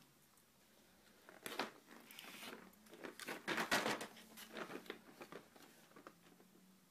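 Close handling noises: a run of crackles, crinkles and clicks, busiest and loudest in the middle and thinning out toward the end.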